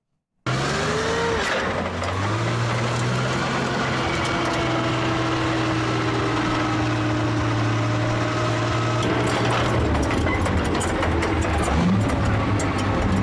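Tank on the move: its engine drones steadily while the metal tracks clank. The sound starts suddenly about half a second in, and the sharp track clanks come through more strongly from about nine seconds in.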